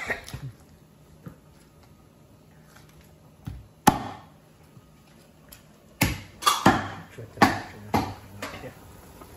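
Cleaver chopping meat on a wooden chopping block: separate sharp chops, the loudest about four seconds in, then a quicker run of knocks in the last few seconds.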